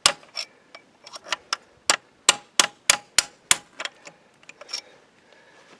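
Hammer driving roll pins out of a tractor's clutch release forks: a run of sharp metallic clangs, about three a second, stopping about five seconds in.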